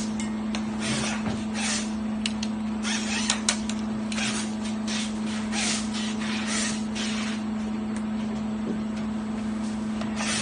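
Wire-bending jig at work on steel wire fed from a coil: a steady machine hum under repeated short hisses and a couple of sharp metallic clicks.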